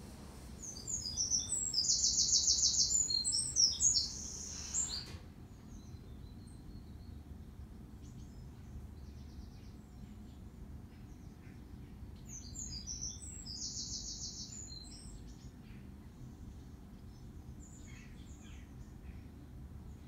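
A small songbird singing twice, two phrases about eight seconds apart, each a few seconds of quick high notes with a fast trill in the middle. Faint short chirps come in between, over a steady low background rumble.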